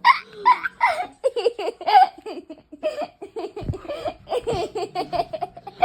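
A person laughing in a long run of short, quick bursts.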